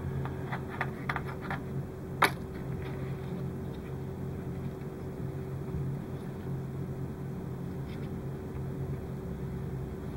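Steady background hum, with light clicks and taps of small plastic model parts and wires being handled by hand, and one sharper click a little over two seconds in.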